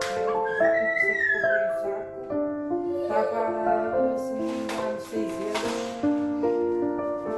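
Background music with a piano melody.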